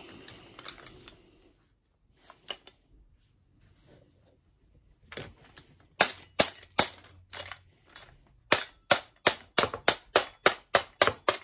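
Claw hammer knocking on the plastic nose cover of a Titan reciprocating saw to drive the cover off. After a few quiet seconds of handling, a run of sharp knocks starts about five seconds in and speeds up to about four a second near the end.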